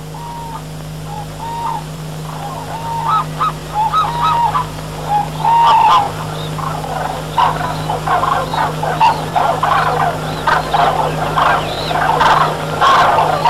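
Birds calling: short, even-pitched calls at first, then many overlapping calls from about six seconds in, over a steady low hum.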